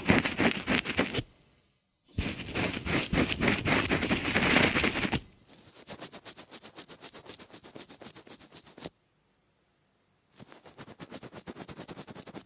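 Rapid scratching or scraping strokes in several bursts a few seconds long, separated by short silences; the second burst is the loudest and the third is fainter.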